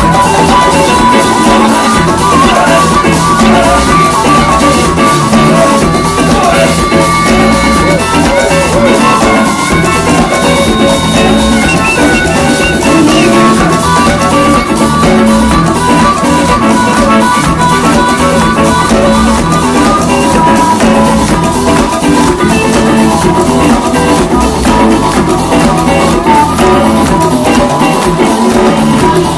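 Live afrobeat band playing loud and instrumental: drum kit and hand drums keep a steady beat under electric guitar and saxophone.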